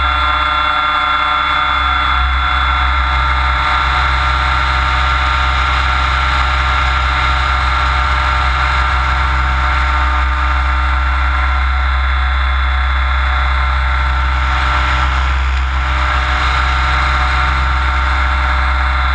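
Mikado Logo 600SX electric RC helicopter in flight, heard close up from a camera on its frame: a steady mechanical whine over the rush of the spinning rotor blades, dipping slightly about fifteen seconds in.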